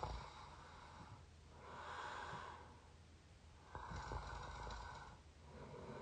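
A person snoring through an open mouth, recorded close up: slow, noisy breaths about a second long each, four in a row with short quiet gaps between them.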